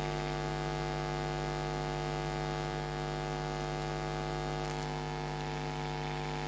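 Steady electrical mains hum, a buzzy tone with many overtones that holds unchanged.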